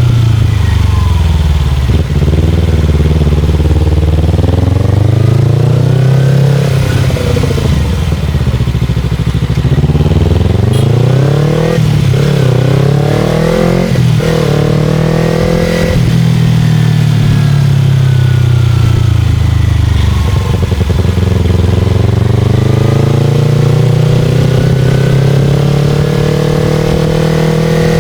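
Motorcycle engine heard from the rider's position while riding: the engine note climbs as it accelerates and falls away as it slows, several times over, with two quick upshifts breaking the climb around the middle.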